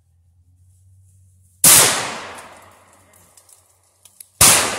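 Two gunshots about three seconds apart, fired up into the treetops at a squirrel, each followed by a long echo that dies away.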